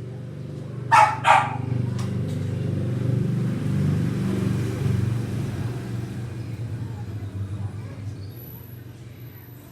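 Suzuki Raider R150 FI's single-cylinder engine running through an open aftermarket exhaust, growing louder over a few seconds and then dying down. A dog barks twice, sharply, about a second in.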